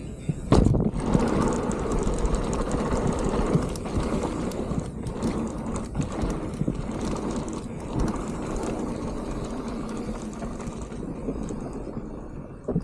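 Full-suspension mountain bike riding fast down a dirt trail: steady tyre and wind noise with frequent rattles and knocks from the bike over rough ground, and a heavy thump about half a second in.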